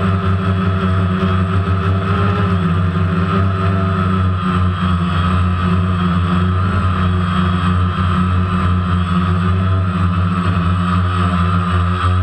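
DJI Phantom quadcopter's electric motors and propellers running steadily, heard from the GoPro camera on board: a loud, even hum with a higher whine over it.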